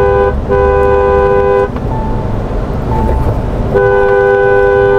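Two-tone car horn honking three times: a short beep, then a honk of about a second, and after a pause of about two seconds a longer honk of about two seconds. A low vehicle rumble from the moving car runs under it.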